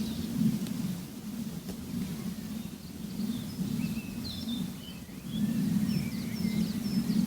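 Birds chirping in short, quick, gliding phrases over a loud, steady low rumble that swells and fades every second or two.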